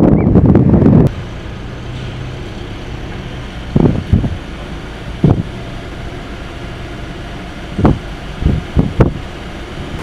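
Strong gusty wind buffeting the microphone: a loud low rumble for about the first second, then a steadier, quieter rush broken by several short gusts hitting the mic.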